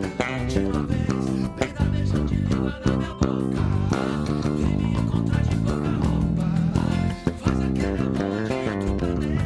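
Yamaha RBX 375 electric bass guitar being played, a run of plucked notes changing quickly.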